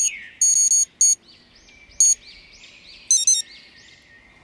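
Electronic carp-fishing bite alarm receiver beeping in an irregular series of short and longer tones, signalling line being taken. A bird chirps repeatedly in the background.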